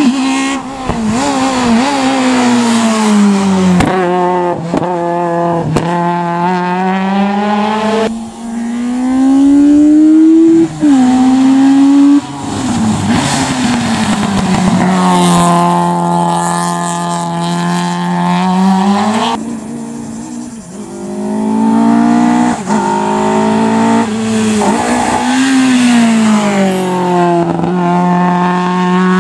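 Hillclimb race cars' engines at full power, the engine note climbing and dropping again and again as the cars accelerate, shift gear and lift off. Several separate passes follow each other with abrupt changes between them.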